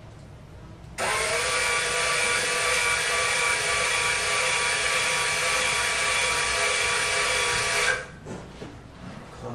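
An electric tool motor running at a steady, unchanging pitch for about seven seconds, starting abruptly about a second in and cutting off suddenly near the end.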